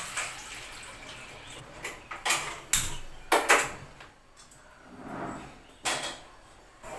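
Water pouring from a plastic jug into a steel vessel, stopping about a second in, followed by several sharp clanks of steel kitchen vessels being handled on the counter and set on the stove.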